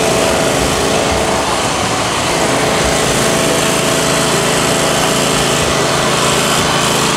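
Small engine running steadily: a constant drone with a few held tones and no change in speed.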